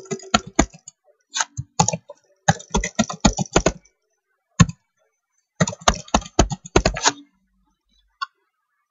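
Typing on a computer keyboard: quick runs of key taps with short pauses between them, stopping about a second and a half before the end, followed by one faint click.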